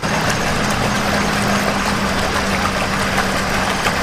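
A hand kneading and squeezing damp granular fishing groundbait in a plastic tub close to the microphone, giving a loud gritty rustle with small crackles. A steady low hum runs underneath.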